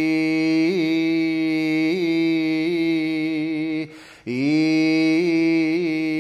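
Shingon shōmyō chant (Buzan school hyōbyaku), one male voice drawing out a long held note with small wavering ornaments (yuri). It breaks off briefly about four seconds in, then comes back on a note that scoops upward into a steady hold.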